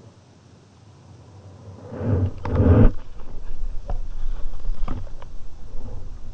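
Muffled water movement against an underwater camera housing: a low rumbling swell of noise that comes in about two seconds in, loudest soon after, with a few sharp clicks and knocks.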